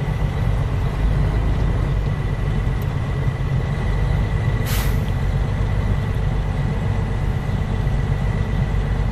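Truck running down a snowy road, heard from inside the cab: a steady low engine and road rumble, with a short hiss about halfway through.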